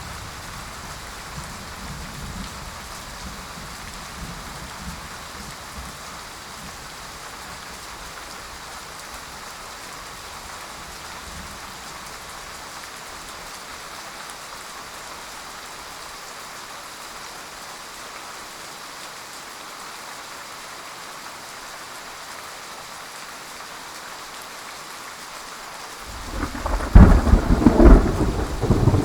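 Steady heavy rain with thunder: a low rumble dies away over the first dozen seconds, then a loud, sudden thunderclap breaks in near the end and rolls on.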